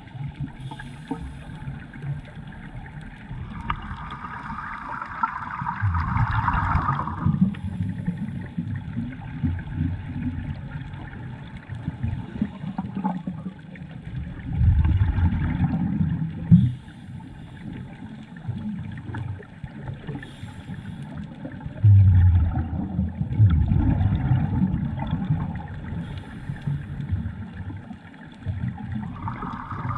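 Scuba breathing heard underwater through the camera housing: a hiss of air drawn through a regulator, then bursts of low bubbling as exhaled air leaves the regulator, repeating every several seconds.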